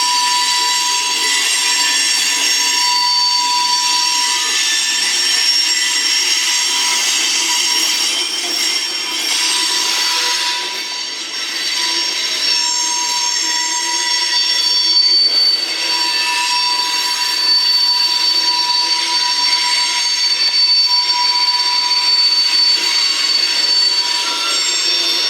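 Freight cars of the CSX M200 manifest train rolling past with their wheels squealing: several steady high-pitched squeals ring together over the rumble of the cars, easing briefly about eleven seconds in.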